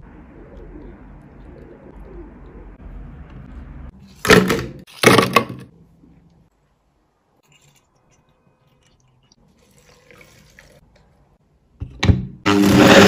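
A thin stream of milk pouring from a bottle into a plastic ice cube tray, then two loud knocks about four and five seconds in. Near the end there are two clicks, and a high-speed countertop blender (a 'wall-breaker' blender) starts up and runs loud and steady.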